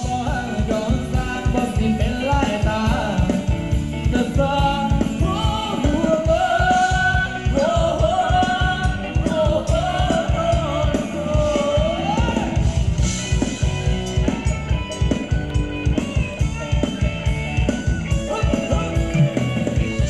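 Live band playing Thai ramwong dance music: a steady drum-kit beat with guitar and a melody line that bends and swells around the middle.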